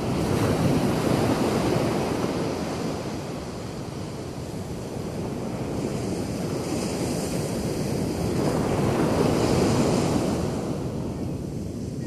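Ocean surf: waves breaking and washing up the beach, swelling about a second in and again near the end before easing off.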